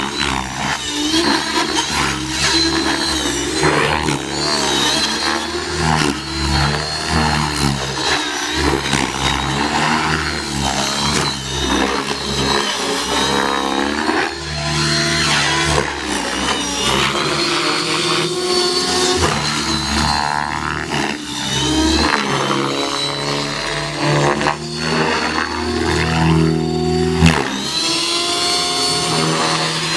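Electric RC helicopter (Align T-Rex 600E) in aerobatic flight: rotor blades and electric motor whining, the pitch rising and falling over and over as the helicopter manoeuvres.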